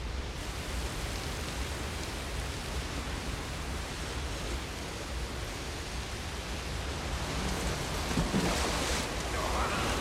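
Steady rush of an underground waterfall and torrent of water, swelling louder with splashing near the end as men are carried through it.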